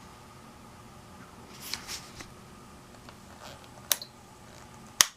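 A brief rustle of handling, then two sharp clicks about a second apart, the second the louder, over a faint steady background hum.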